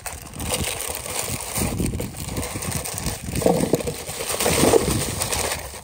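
Gladiolus bulbs tumbling and rattling out of a perforated bag into a black plastic nursery pot, with the bag crinkling, a dense run of small clicks and rustles.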